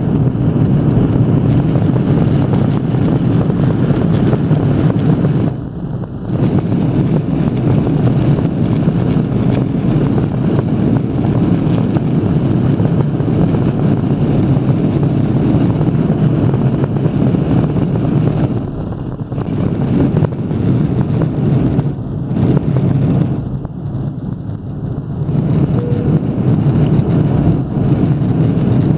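Cabin noise of an Airbus A330-300 on its takeoff roll: a loud, steady rush of the jet engines at takeoff thrust and the runway, dipping briefly a few times, through to lift-off near the end.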